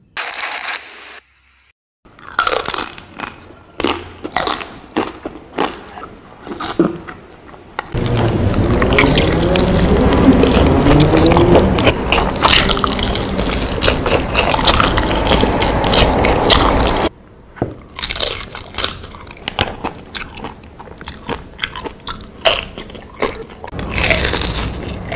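Close-miked mukbang eating: a man biting into crispy fried chicken, with many sharp crunches and crackles of the skin and chewing. A long, louder, denser stretch of eating sound fills the middle.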